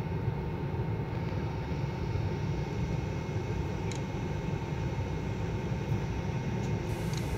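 Steady low rumble of a moving passenger train heard from inside the coach through closed windows, with a couple of faint clicks.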